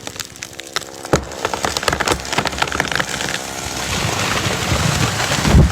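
A felled tree's trunk cracking and splintering as it gives way: many sharp cracks, then a growing rush of noise, then a heavy thud near the end as the tree hits the ground.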